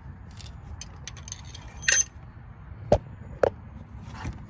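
Light metallic clinks and sharp taps of steel pushrods being handled and pushed down into their lifters in an LS V8's cylinder head: a short clatter about two seconds in, then two sharp knocks about half a second apart and a lighter click near the end.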